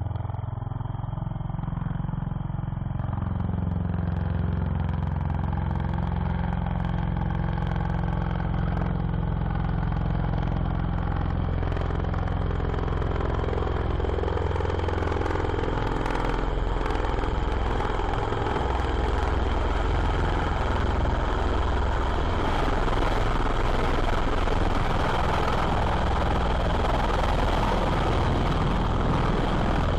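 An engine running steadily with a low rumble; over the first few seconds it grows a little louder and harsher, then holds.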